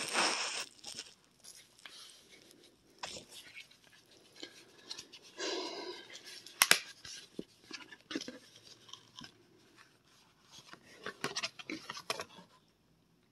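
Paper and thin card rustling and crinkling in the hands as a folded instruction leaflet is opened and turned over, with a louder crackle at the start, a sharp click about halfway through, and another run of crackles near the end.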